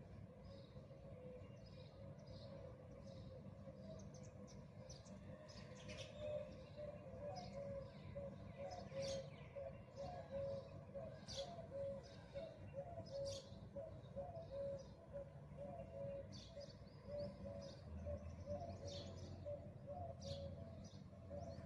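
Birds chirping repeatedly, with quick high notes coming thicker from about six seconds in, over a faint steady low hum.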